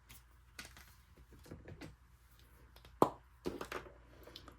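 Faint taps and short rustles of small craft pieces and paper being handled on a tabletop, with one sharp click about three seconds in.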